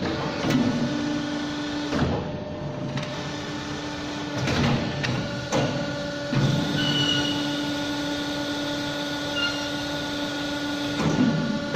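CNC pipe bending machine running: a steady motor hum, broken by several sharp clicks and clunks as its parts move.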